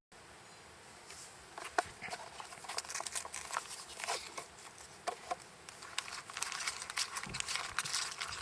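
Wood campfire crackling, with irregular sharp pops and snaps that grow denser from about a second in.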